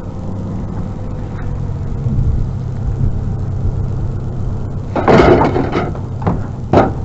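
A vehicle engine idling with a steady low hum. About five seconds in, a loud clatter of metal pipes being shifted in a scrap pile, followed by two sharp clanks near the end.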